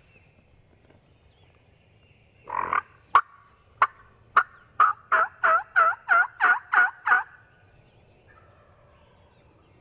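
Turkey calling: a short call, then three sharp clucks spaced well apart, then a quick run of about eight yelps, roughly three a second.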